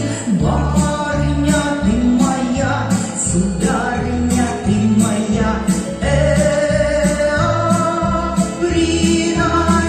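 Music with singing over a steady bass beat of about two beats a second.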